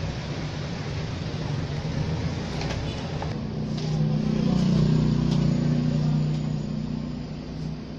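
A motor vehicle's engine rumbling steadily, growing louder about halfway through and then fading as it passes. A few light clicks and knocks as the amplifier's metal cover is lifted off.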